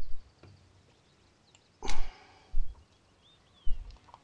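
Scattered handling knocks and clicks while a northern pike is unhooked over the side of an aluminum boat, the loudest a sharp knock with a dull thud about two seconds in.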